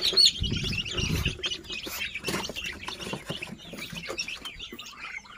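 Kampung chicken chicks peeping busily, with scattered light clicks and taps, as the birds go at their feed.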